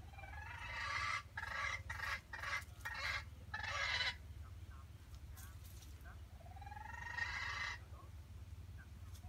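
Jungle chicken (junglefowl) calling: a run of loud, short calls over about four seconds, then one longer call about seven seconds in.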